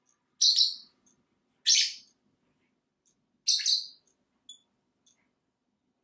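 Pet lovebirds giving three loud, shrill, harsh chirps, spaced about a second and a half apart, with a few faint ticks between them.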